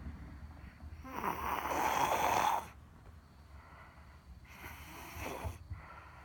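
Snoring: one loud, drawn-out snore starting about a second in and lasting over a second, then a softer snoring breath a few seconds later.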